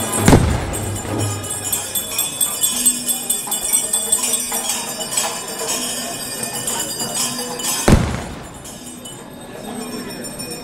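Small bells jingling and ringing over crowd noise, broken by two loud sharp bangs, one right at the start and one about eight seconds in; after the second bang it turns quieter.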